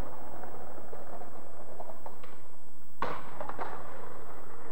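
Skateboard wheels rolling on asphalt, with one sharp clack about three seconds in and a couple of lighter taps just after.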